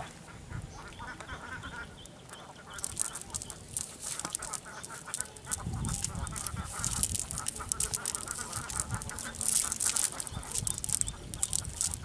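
A wet nylon cast net being handled and picked clean by hand, with rustling and many small clicks from about three seconds in. Repeated duck-like quacking calls sound behind it.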